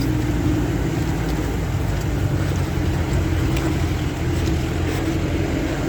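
Jeep engine running steadily while driving, a low hum and rumble heard from inside the open safari jeep.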